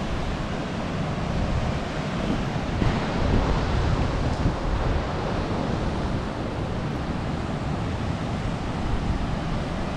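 Steady rushing of a rocky river, mixed with wind buffeting the microphone.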